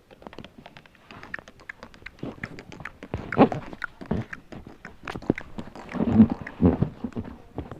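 A cat crunching dry cat treats: many quick irregular clicks, with a couple of louder thuds about three and six seconds in.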